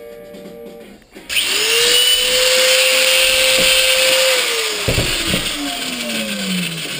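An electric power tool's motor switches on about a second in and runs at a steady high speed with a loud hiss. It is then switched off and winds down, its pitch falling steadily over the last few seconds, with a couple of knocks as it slows.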